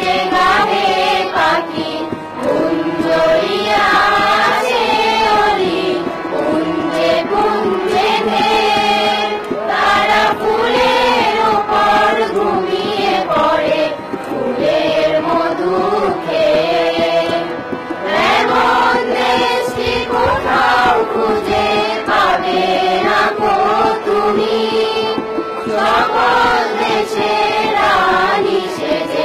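A chorus of boys and girls singing a Bengali patriotic song (deshher gaan) together, accompanied by tabla.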